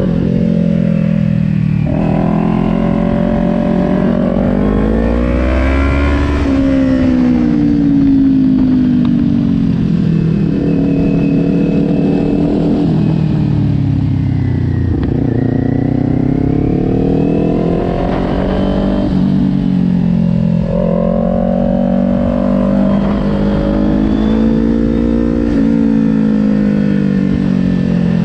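2020 Kawasaki Ninja 400's parallel-twin engine heard from on board at track speed, its pitch rising and falling again and again as the rider accelerates out of corners and rolls off into the next, with wind rushing over the microphone.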